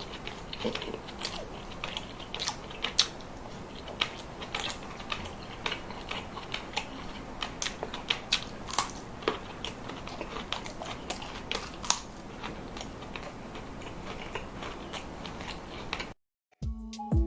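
Close-miked chewing of crunchy food, a run of irregular crunches and clicks over a steady hiss. Near the end it cuts off abruptly and music starts.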